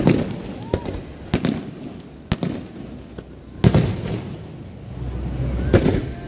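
Fireworks display: aerial shells bursting in a string of sharp bangs, about seven in a few seconds, each trailing off in an echo. The loudest comes a little past halfway, and a low rumble carries on between the bangs.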